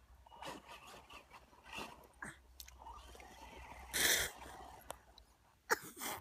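Wet mud squelching and small splashes as hands dig in a muddy puddle, with a few louder bursts, the loudest about four seconds in and two more near the end.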